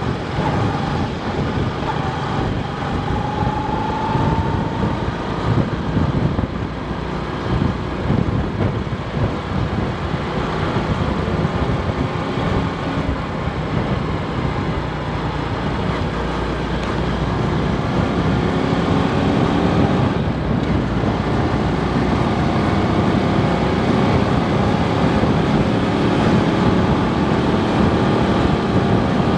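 Daelim Citi 100 motorcycle riding along the road, its small engine climbing in pitch as it speeds up, once early on and again in the last third, under steady wind noise on the microphone.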